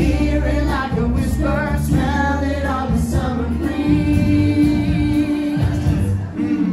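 A song with a group of voices singing over backing music, with one long held note a little past the middle.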